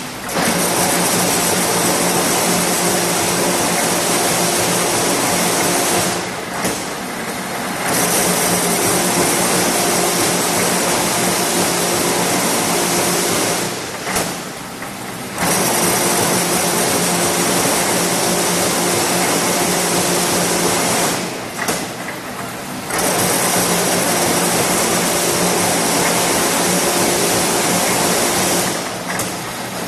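TMT wire straightening and cutting machine running: a loud, steady mechanical whir with a hum as the wire feeds through the straightening rollers. The noise drops away for a second or two four times, about every seven and a half seconds, then comes back.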